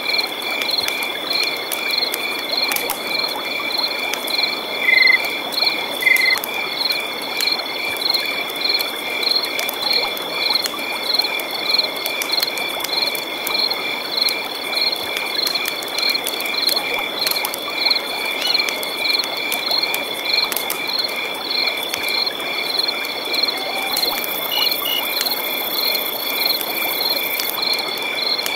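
Night chorus of frogs and insects: a steady, even pulsing trill about three times a second alongside a continuous high insect tone, over a soft background hiss. A higher, thinner insect buzz joins for a few seconds near the end.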